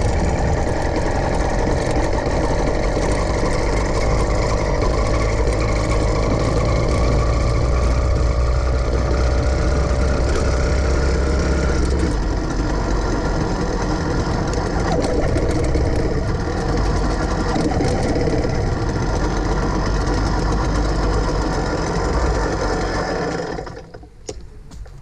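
Small engine of a gas-powered bicycle running steadily while the bike is ridden; the sound cuts off abruptly near the end.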